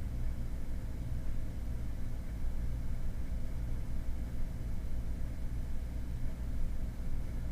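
Steady low background rumble with a faint constant hum, unchanging and without distinct events.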